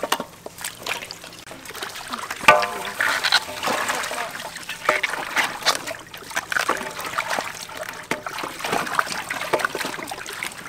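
Water splashing and trickling in a metal basin as raw chicken pieces are rinsed and handled by hand, with many short clicks and knocks.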